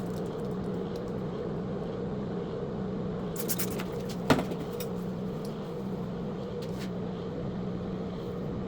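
A small electric motor hums steadily. A few brief rattles are heard about three and a half seconds in, and a single sharp click comes just after.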